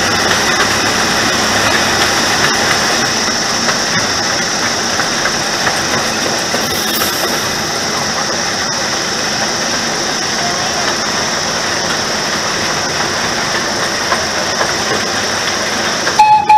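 Chance Rides miniature train running steadily along its track, with engine noise and the rattle of the open passenger car. The train's whistle sounds briefly, loud and steady, right at the end.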